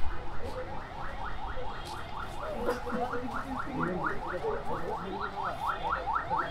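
A metal spoon scraping rapidly round a metal tin as puffed-rice street snack (jhalmuri) is mixed. It makes a steady run of short squeaky rising scrapes, about five a second.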